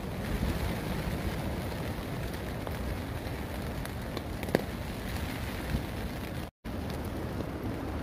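Steady rain falling on a hammock tarp overhead, with one sharp tap about halfway through and a brief cut to silence a little before the end.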